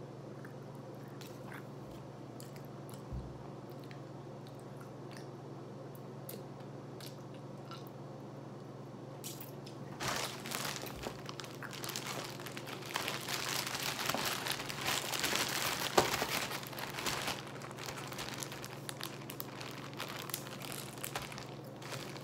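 Faint chewing with small clicks, then from about ten seconds in a plastic zip-top bag crinkling steadily as it is handled, for about ten seconds.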